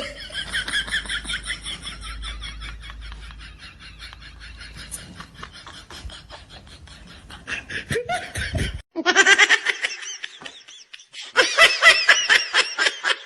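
People laughing hard in rapid, high-pitched fits, with brief breaks about nine and eleven seconds in before the laughter starts again.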